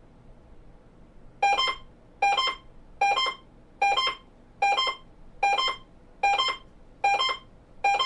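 An emergency alert receiver's electronic alarm beeping: nine short, identical two-note beeps, one about every 0.8 seconds, starting about a second and a half in. The beeps signal the incoming nationwide Emergency Alert System test.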